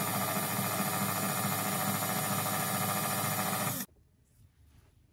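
KitchenAid Artisan stand mixer running steadily, its wire whip mixing a runny egg, oil and yogurt batter. The motor cuts off suddenly almost four seconds in.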